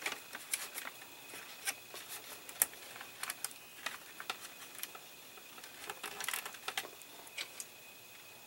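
Hands handling a plastic scale-model dashboard and its wiring: scattered small clicks, taps and rustles, with a busier cluster of them about six seconds in.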